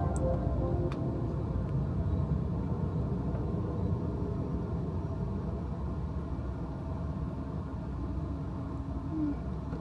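Steady low rumble of an Amtrak passenger train, with a couple of faint clicks in the first second.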